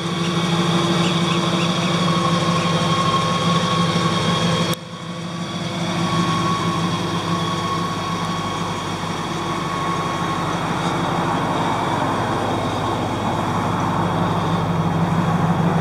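A 2001 Ford SVT Lightning's supercharged 5.4-litre V8 idling steadily through Bassani headers and a stainless cat-back exhaust. The sound drops briefly about five seconds in, then carries on unchanged.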